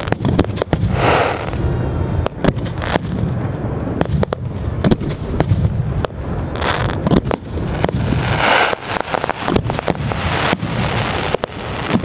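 New Year's fireworks: aerial shells bursting overhead in a dense series of sharp bangs, with spells of crackling every couple of seconds.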